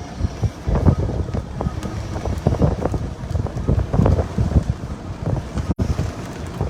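Strong wind buffeting the microphone in irregular, gusty thumps.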